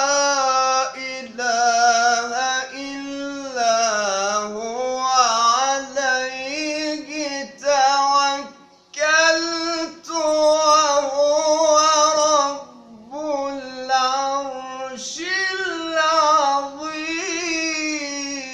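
A man's voice chanting Quran recitation melodically, solo and unaccompanied: long drawn-out phrases with ornamented, wavering pitch. It breaks off briefly between phrases, the longest break about nine seconds in.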